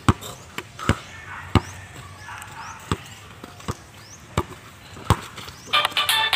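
A basketball being dribbled on a hard-packed dirt court: seven sharp bounces, about one every three-quarters of a second. Music comes in near the end.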